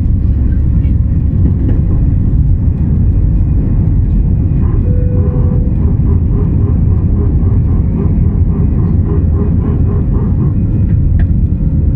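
Steady, loud roar inside the cabin of an Airbus A319-111 in flight, from its CFM56 turbofan engines and the airflow, deepest in the low range. The aircraft is climbing out at night.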